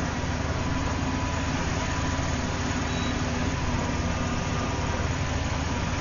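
Auto crane truck engine idling steadily, an even low running sound with no change in speed.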